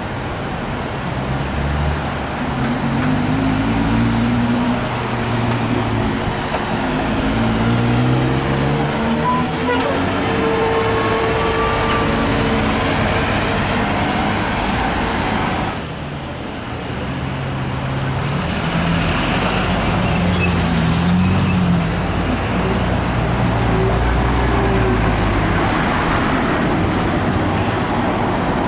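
City transit buses and street traffic passing. Bus engines rise and fall in pitch as they pull away and go by, one of them a natural-gas-powered bus. The sound shifts abruptly about 16 seconds in, at a cut between two clips.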